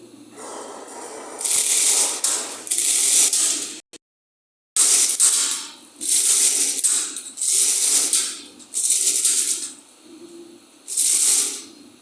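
Milling machine cutting a steel roller: repeated bursts of harsh, hissy cutting noise, each about a second long with short pauses between, as the cutter works along the roller. The sound cuts out completely for under a second a few seconds in.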